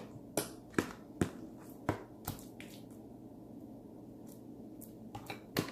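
Sticky homemade slime of glue and laundry detergent being handled and kneaded by hand, giving a few short wet squelching clicks, about five in the first couple of seconds and a couple more near the end.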